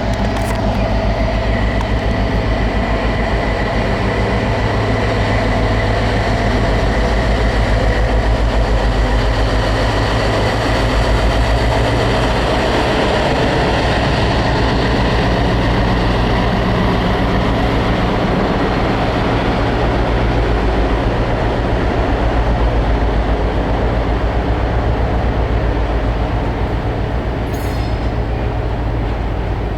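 A train running close by: a loud, steady rumble with a steady whine over it, easing slightly near the end.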